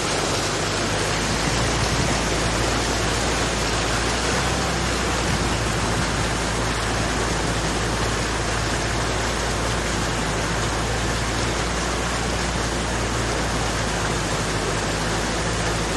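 A jeep wading through deep floodwater: a steady rush of water churning against the front and body, with the engine running low and even underneath.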